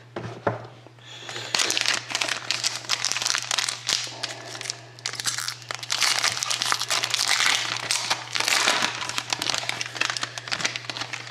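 Plastic wrapper crinkling and tearing as a sealed pack of hockey cards is opened by hand, a continuous crackle of many small clicks that starts about a second and a half in.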